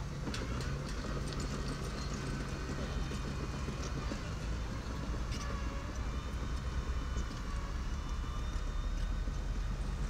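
Miniature bulldozer's diesel engine running steadily under work, with scattered metallic clanks and faint squeals from the machine.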